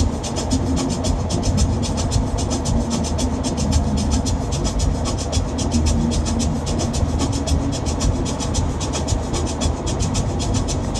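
Steady road and engine noise of a shuttle van driving, a low rumble with a fast, even ticking over it.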